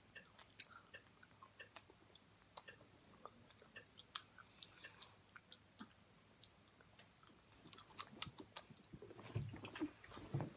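Faint, scattered small clicks and crackles close to the microphone. About eight seconds in, louder clicks, knocks and rustling follow as the person shifts on the bed.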